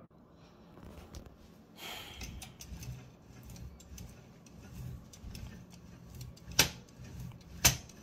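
Hands working on a Toshiba BW-3112 kanji typewriter's mechanism: a brief scrape about two seconds in, then two sharp metallic clicks about a second apart near the end.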